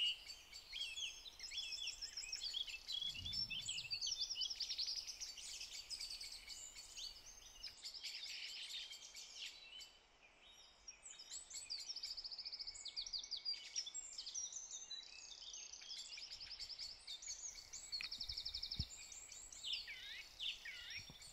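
Faint birdsong: several small birds chirping and trilling over one another, from a recorded countryside-morning soundscape.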